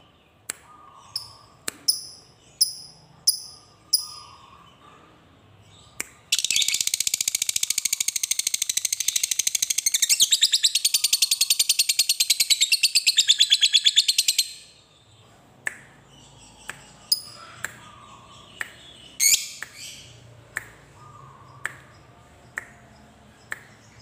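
Fischer's lovebird calling: a few sharp chirps, then a long unbroken rapid chatter lasting about eight seconds (the prized long 'ngekek' of a contest lovebird), followed by scattered short chirps and clicks.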